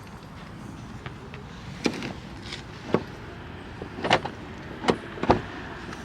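Idling car with a run of five sharp clunks and knocks, the last two close together and the loudest: car doors and carriers being handled at a waiting taxi.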